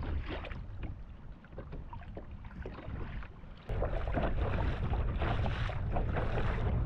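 Choppy water slapping and splashing against a kayak's hull, with wind rumbling on the microphone. About three and a half seconds in the sound jumps louder, the wind rumble much heavier.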